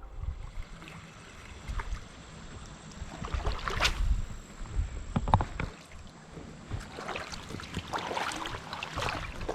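Wind buffeting the microphone in a rising and falling low rumble, with several short sharp sounds, the sharpest about four seconds in.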